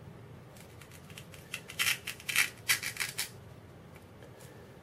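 Small flat-head screwdriver tip clicking and scraping against a plastic controller case while trying to reach a tiny bind button that does not line up with its access hole. A quick run of sharp clicks and scratches starts about half a second in and stops a little after three seconds, loudest in the middle.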